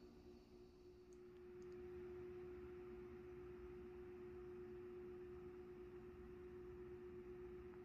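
Near silence: room tone with a faint, steady, unchanging hum at one pitch.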